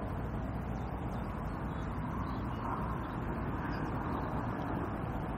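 Steady rushing noise of a fast-flowing flooded river, an even low rumble with a hiss above it that hardly changes.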